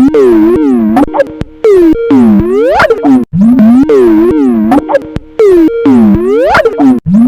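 Skype ringtone, heavily warped: loud synthetic tones swooping down and then sharply up in pitch, in a loop that repeats about every two seconds with abrupt cuts between repeats.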